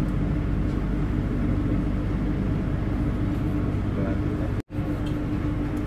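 Steady hum and low rumble inside a standing passenger train coach, while the flat wagons of a freight train roll past on the next track. The sound drops out for an instant a little before the end.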